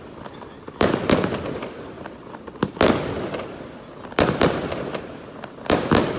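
Aerial firework shells bursting overhead: sharp bangs coming in quick pairs about every second and a half, each trailing off in a rolling rumble.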